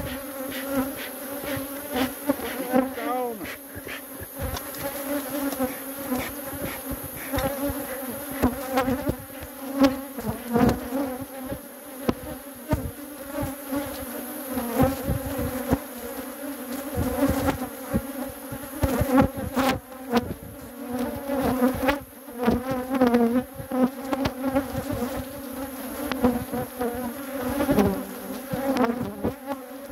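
Defensive honeybees buzzing in a loud, continuous swarm around an open hive, with single bees zipping past close by in rising and falling whines. Scattered short clicks and knocks sound throughout.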